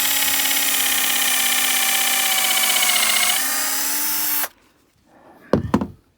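Electric drill boring pilot holes through 3/4 inch plywood sister pieces into a wooden roof truss, running at a steady high whine that sags slightly in pitch about three seconds in, then stopping suddenly. A couple of sharp knocks follow near the end.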